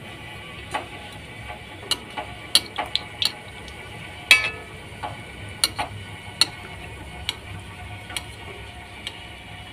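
Besan pakoris deep-frying in hot oil in a metal kadhai: a steady sizzle with scattered sharp clicks. A metal slotted spoon clinks against the pan about four seconds in, the loudest hit, with a short ring.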